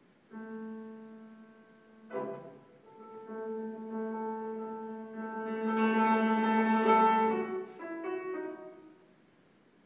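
A singer and a grand piano performing contemporary classical music: long held notes that swell to their loudest about six to seven seconds in, then a few short falling notes and a fade to quiet.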